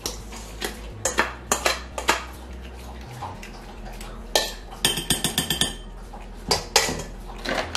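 A spoon scraping and knocking against the inside of a stainless steel mixing bowl as a thick mixture is emptied out of it: a string of clinks and knocks, with a quick run of ringing metal taps about five seconds in.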